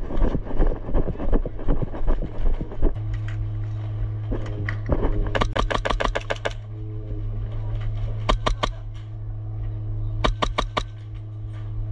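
Airsoft guns firing bursts of rapid shots: a long burst about five seconds in, then two short bursts about eight and ten seconds in. The first three seconds hold movement noise and wind on the microphone, and a steady low hum runs underneath after that.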